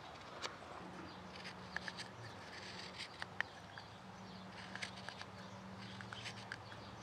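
Morakniv 106 sloyd knife paring green alder wood: short crisp slicing and scraping cuts at an irregular pace, some sharp ticks as shavings come away. A faint steady low hum runs underneath.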